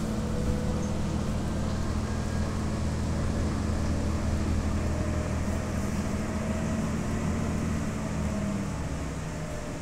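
Inside a 2011 New Flyer DE60LFR articulated diesel-electric hybrid bus (Allison EP50 hybrid drive) under way: a steady low engine drone over road noise, with a faint whine that rises a little. The low drone fades near the end.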